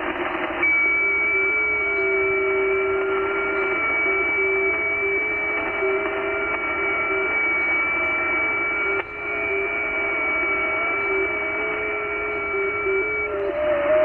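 Receiver audio from the 40-metre FT8 frequency (7.074 MHz): several FT8 digital signals at once, each a steady tone that hops between nearby pitches, over band hiss. They start together about half a second in and stop together near the end, one FT8 receive period.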